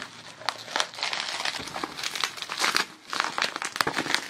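Plastic bubble wrap crinkling and crackling as a package is handled and unwrapped, with many sharp little crackles.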